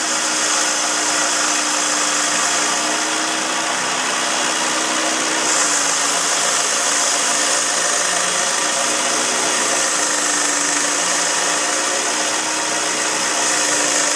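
Speedster diamond-blade bandsaw with a water-cooled blade running steadily while it slowly cuts through a light-gauge copper pipe. Its tone drops slightly about five and a half seconds in.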